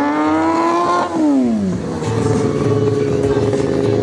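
Stunt motorcycle engine revving up, dropping back sharply about a second in, then running at a steady pitch.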